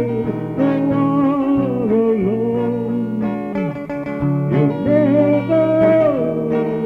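Slow country-style ballad music with guitar carrying the melody, and no words.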